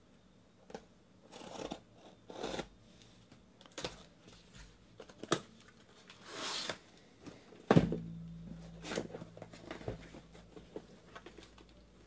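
Cardboard shipping case being opened by hand: a box cutter scraping through packing tape, tape tearing and cardboard flaps rustling, in short scattered bursts. About two-thirds of the way in there is one sharp knock, the loudest sound.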